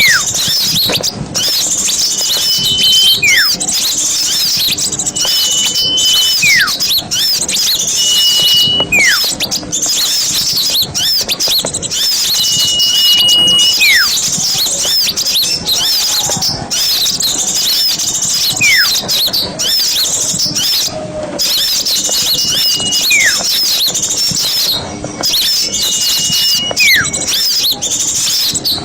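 Small songbirds chirping and twittering densely in a high register, over which one bird repeats a call every few seconds: a short steady whistle that drops away in a downward slur.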